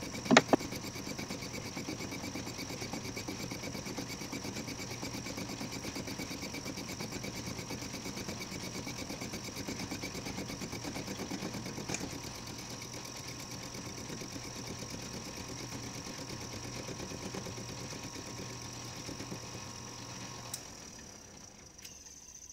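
Atlas/Craftsman 12-inch metal lathe running at its slowest speed, with a steady rhythmic mechanical clatter from its drive as a high-speed steel tool takes an interrupted facing cut on a steel plate held in a four-jaw chuck. The sound drops and grows quieter near the end.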